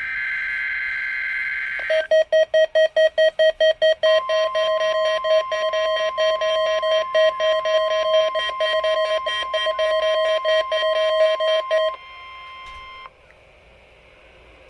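The end of a NOAA Weather Radio SAME data burst, a two-tone digital squawk, runs until about 2 s in. Then the Midland WR300 weather radio's built-in alert goes off, a loud beep pulsing about five times a second. From about 4 s in, the broadcast's steady 1050 Hz warning alarm tone sounds under the beeping. The beeping stops about 12 s in and the tone a second later, leaving faint radio hiss.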